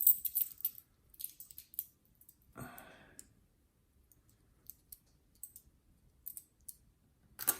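Silver dimes clicking against one another as they are handled and stacked, in scattered light clicks, busiest at the start and again near the end.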